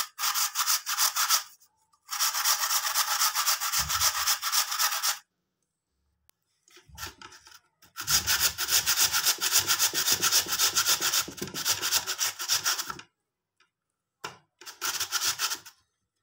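Raw peeled potato scraped over the teeth of a flat stainless-steel hand grater, shredding it into long strands. The scraping comes in four runs of rapid, even strokes, the longest about five seconds, with short pauses between them.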